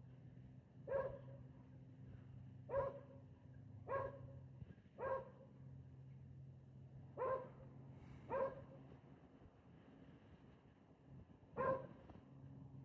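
A dog barking, seven short single barks at uneven intervals over a steady low hum.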